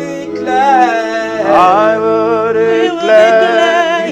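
Gospel worship singing, with voices holding and bending long melismatic notes between lines of the refrain over sustained keyboard chords.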